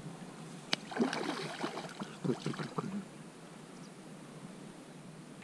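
Hooked wild common carp (sazan) thrashing and splashing at the water's surface close to the rod tip, in a run of splashes from about one to three seconds in, after a single sharp click just before.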